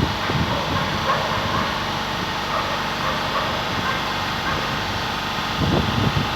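Train running, a steady noise with a few low thumps near the end.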